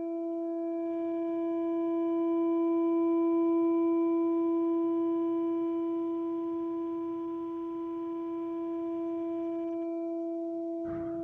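A steady humming drone held on one low pitch with overtones, swelling slightly a few seconds in, which is presented as the sound of an alien contact. A brief rustling noise cuts in near the end.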